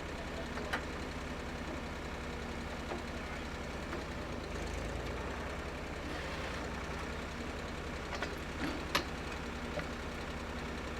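Water-well drill rig's engine running steadily, with a few short sharp knocks about a second in and again near the end.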